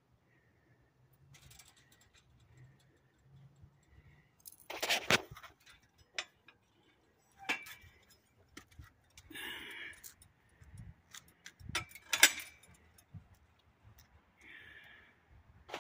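Handling noise from a plastic rope light being pulled over by hand: scattered rustles and clicks, with two louder knocks about five and twelve seconds in.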